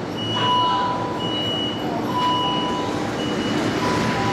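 A Shanghai Metro Line 10 train of type 10A02 starting to pull out of the station, its running noise rising near the end. Over it run repeated electronic warning beeps, each under a second long, alternating between a high pitch and a lower pitch.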